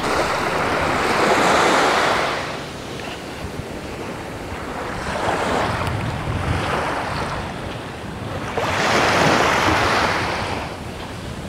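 Sea waves washing onto the beach, swelling and easing three times a few seconds apart, with wind across the microphone.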